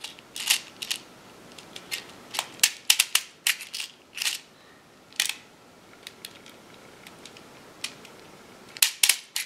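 Plastic airsoft BB speed loader pushed into a magazine, its plunger pressed in a run of irregular sharp clicks as BBs are forced in, with a cluster of clicks in the middle and two more near the end.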